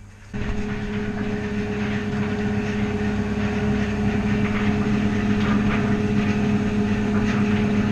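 A steady machine hum with a strong low tone, a fainter higher tone and a hiss, starting suddenly about a third of a second in.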